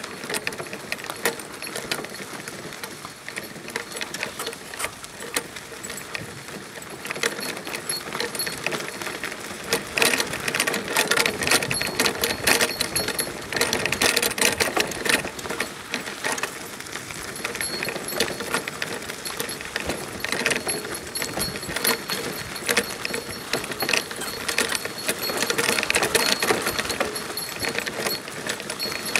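Single-dog sacco cart rattling and its wheels running over a sandy dirt road as the dog pulls it: a continuous fast clatter of metal frame and hardware, louder about a third of the way through.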